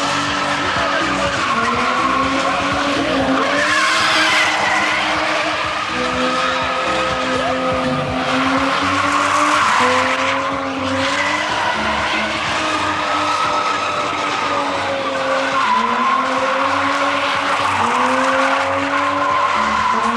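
BMW saloon car spinning in tight circles, its engine held at high revs with the pitch dipping and climbing again every second or two, and its rear tyres squealing as they spin on the concrete.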